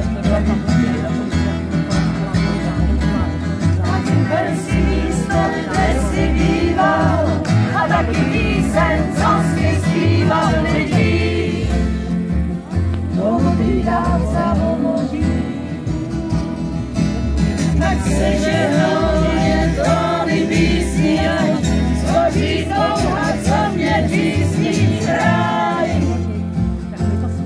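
Live acoustic music: an upright double bass and an acoustic guitar played together, with singing over a steady plucked bass line.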